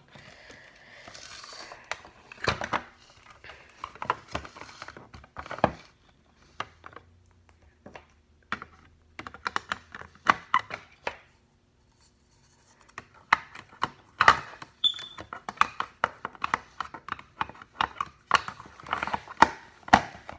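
Hard plastic toy capsule being handled as a doll is put back inside: irregular clicks, taps and knocks of plastic parts and hinged clear panels, with a short quiet spell a little after halfway.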